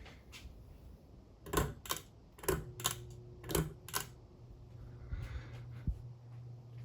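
About six sharp clicks in close pairs, as of a ceiling fan's switch being worked, after which the fan motor's steady low hum sets in and keeps on.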